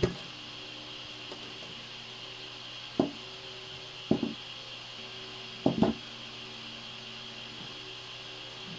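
Chef's knife cutting through red bell peppers and knocking on a plastic cutting board: a knock at the start, another about three seconds in, then a quick pair and a quick cluster of knocks a little later, over a steady background hum.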